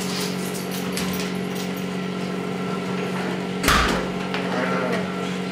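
A steady low hum, with one short metallic clank a little past halfway as a hand tool is picked up from the steel bench vise.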